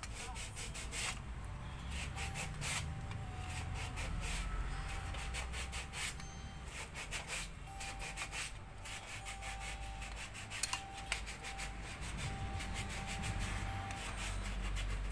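Hand lever grease gun being pumped to pack a wheel bearing with grease, its lever and plunger making repeated short scraping strokes.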